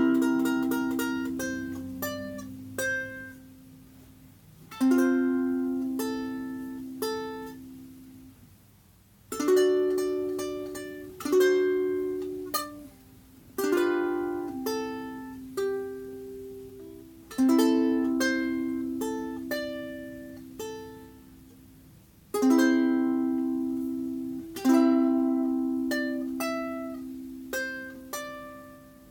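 Enya soprano ukulele on its original Enya carbon strings, high-G tuning, played as a slow plucked tune. Single notes and chords ring out and die away between phrases.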